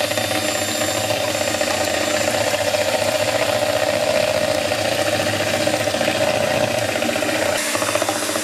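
Electric hand mixer running steadily, its twin wire beaters whisking eggs and ghee in a plastic bowl. The motor falters briefly near the end, then carries on.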